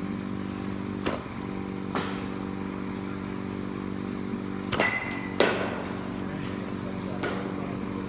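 Softball batting practice in a cage: several sharp cracks of a bat hitting pitched softballs and of balls striking the netting. The loudest is a close pair about halfway through, the first with a brief ringing ping. Under it all is a steady machine hum.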